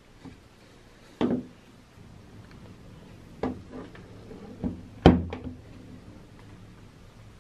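About half a dozen knocks and clunks of a heavy tool being handled and set down on a wooden workbench, the loudest about five seconds in.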